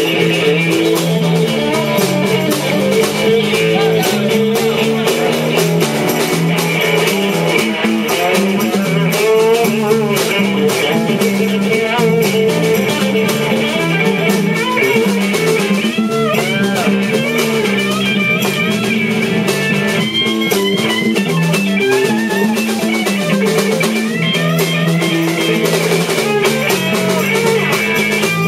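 Live blues-rock band playing an instrumental passage: an electric guitar lead with bent notes over a bass guitar line and a drum kit.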